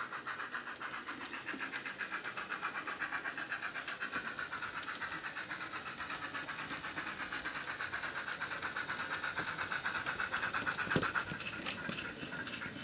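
Model Dapol GWR Large Prairie tank engine's DCC sound decoder (ESU LokSound with Jamie Goodman's steam sound file) playing rapid, even steam exhaust chuffs through its small smokebox speaker. The chuffs grow louder as the loco approaches, and there is a single knock near the end.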